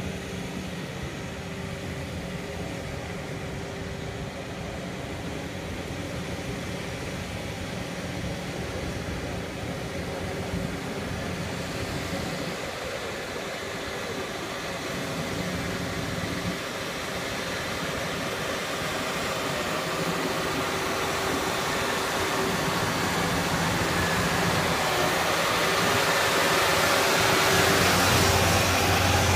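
Engine of a 100 HP rubber-tracked paddy tractor running steadily as it pulls a rotary tiller through flooded mud, growing steadily louder as the tractor comes closer.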